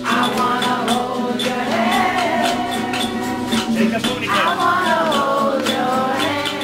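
Live group jam: a sung melody over acoustic guitar, with hand-made shakers and percussion keeping a steady rhythm.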